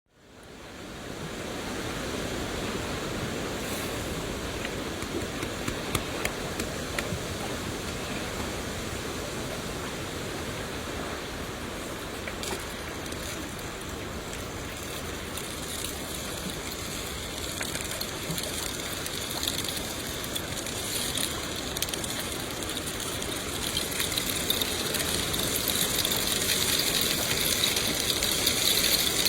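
Steady rain falling, fading in at the start, with scattered sharp drip ticks. It grows louder and brighter toward the end, with a denser crackling patter.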